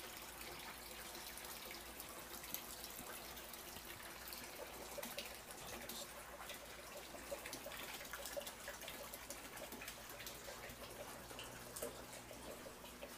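Water trickling and dripping in an aquaponics system, a faint continuous splashing of many small irregular drips, over a low steady hum.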